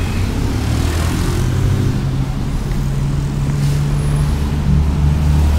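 A motor vehicle's engine running steadily at low revs, a low hum, over street traffic noise.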